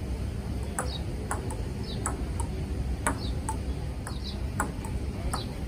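A table tennis rally: the ball clicks sharply off the rubber paddles and bounces on the Butterfly Ultimate table, at an uneven pace of about two hits a second.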